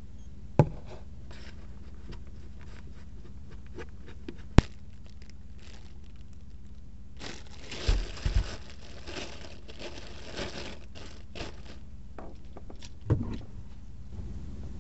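Plastic food packaging crinkling and rustling for several seconds while food is handled, with a few sharp knocks and clicks before and after, over a steady low hum.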